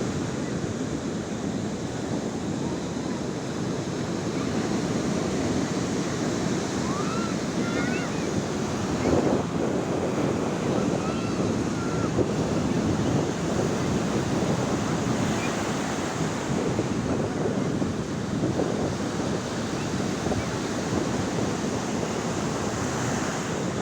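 Sea waves washing in and drawing back in a steady, continuous surge.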